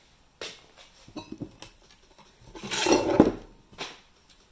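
Short steel pipe offcuts clinking and knocking together as one is picked up from the workbench, with a louder scrape and knock about three seconds in.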